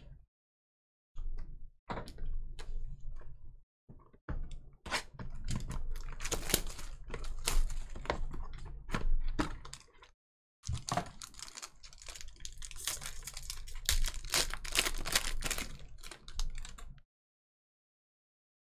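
Crinkling, tearing and clicking of plastic wrap and cardboard as boxes of 2021 Inception baseball cards are opened, in irregular crackly stretches broken by short silent gaps.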